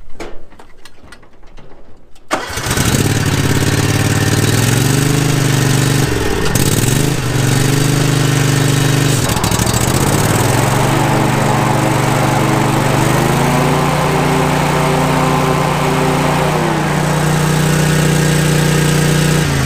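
A few clicks, then an Exmark mower's engine starts about two seconds in and runs, its speed dipping and recovering a few times. It is being test-run after a new PTO switch was fitted.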